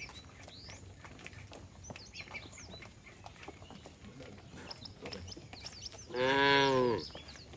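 A cow moos once near the end, a single call of about a second that rises and then falls in pitch, calling to the rest of the herd. Before it come scattered light clicks of hooves on a concrete lane.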